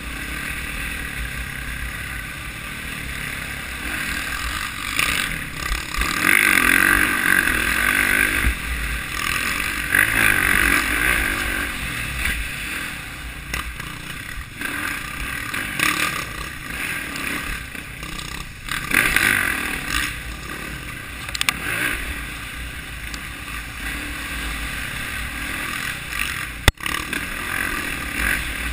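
Dirt bike engine under way, rising and falling with the throttle in several louder surges, with wind rushing over the microphone. A single sharp click near the end.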